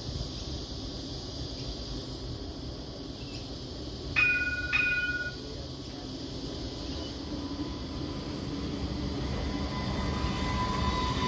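Light rail tram at the platform: two short two-tone electronic beeps about four seconds in, then the tram's running noise builds as it pulls away, with a steady whine rising near the end.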